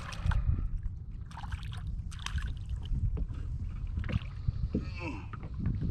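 A hooked crappie splashing at the surface beside the boat as it is reeled in: a few short, irregular splashes over a steady low wind rumble on the microphone.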